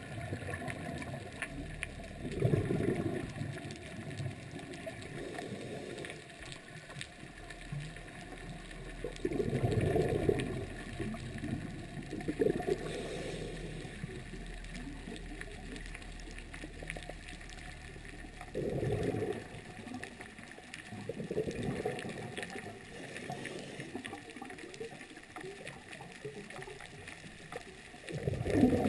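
Underwater sound through a camera housing: a steady faint hiss, with bursts of gurgling bubbles about a second long every several seconds, typical of a scuba diver exhaling through a regulator.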